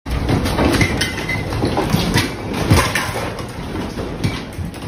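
Room shaking in a strong earthquake: a continuous low rumble with household objects on the shelves rattling, knocking together and clattering down, in many irregular knocks.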